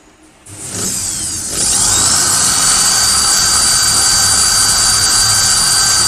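Electric drill with a hole saw starting up about half a second in. Its motor whine rises to full speed and then runs steadily and loud as the saw cuts a hole in the fiberglass (FRP) tank panel.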